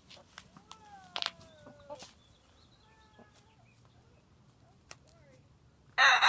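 Chickens making soft, drawn-out calls and clucks, with a few sharp clicks. Near the end, a rooster suddenly starts a loud crow.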